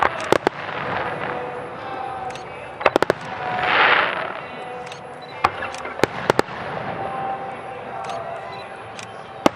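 Aerial firework shells bursting in sharp bangs: a quick cluster just after the start, another about three seconds in, then scattered reports, with a loud rushing swell of noise about four seconds in.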